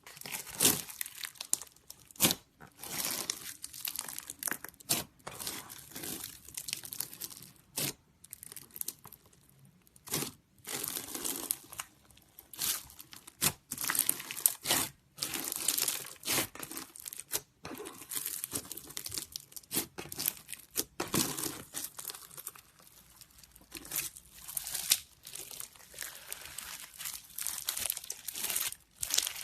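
Slime being squeezed and pressed by hand, crackling and popping in repeated bursts with short pauses between.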